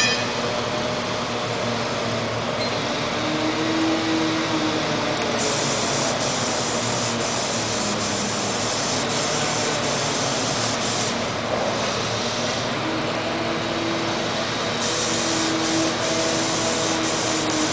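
Paint spray gun hissing in two long bursts, about five seconds in and again near the end, over a steady mechanical drone.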